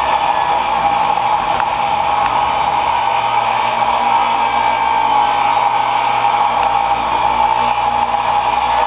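Table saw running steadily, a loud even whine.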